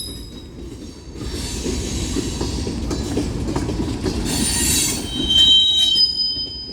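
Union Pacific mixed freight train's cars rolling past with a steady low rumble of wheels on rail. Over the last second or so a high-pitched steel wheel squeal sets in, holding a steady pitch.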